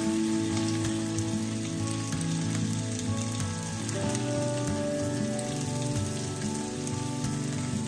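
Lamb chops frying in a hot skillet, a steady crackling sizzle, under background music with long held notes.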